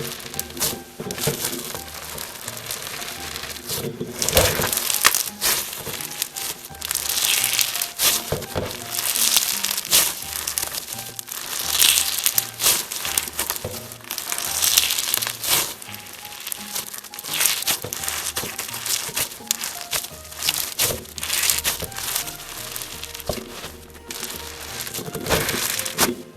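Slime being squeezed, stretched and poked by hand, giving repeated crinkling, crackling squishes that come and go in bursts, over background music with a steady beat.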